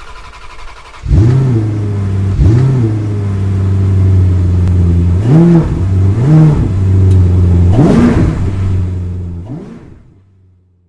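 An engine idling and blipped about five times, its revs rising and falling quickly each time, then fading out.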